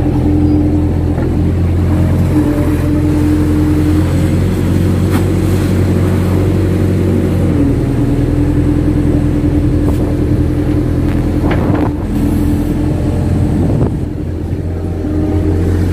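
Kato HD 512E crawler excavator's diesel engine running steadily under hydraulic load, heard from the cab, as the bucket digs mud from a shallow canal bed. Its note shifts slightly as the boom and bucket move, and it eases briefly near the end.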